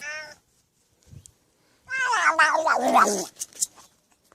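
A cat's long, drawn-out meow, about two seconds in, sliding steadily down in pitch, with a brief call at the very start.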